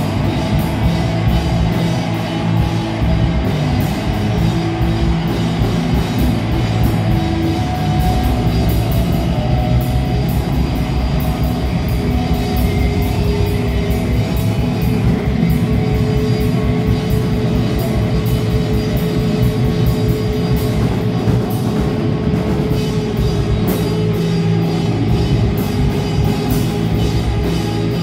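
Rock band playing live at full volume: electric guitars, bass guitar and drum kit, with cymbals struck in a steady rhythm.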